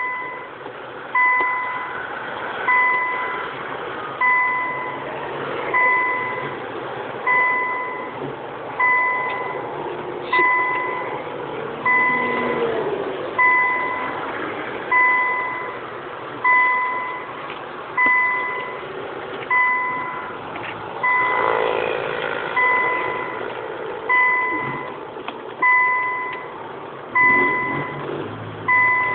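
Electronic chime: one steady tone sounding about once every one and a half seconds, each note starting sharply and fading away, over a steady background hiss.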